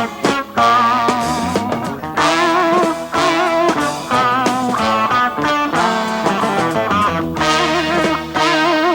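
Electric guitar solo with long, bent and wavering lead notes over a brass-rock band, in a live recording.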